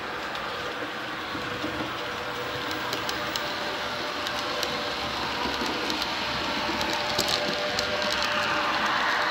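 Model trains rolling along the layout's track: a steady whir of wheels and motors with a faint steady whine, and light sharp clicks over the rail joints. It grows slightly louder toward the end as a train passes close by.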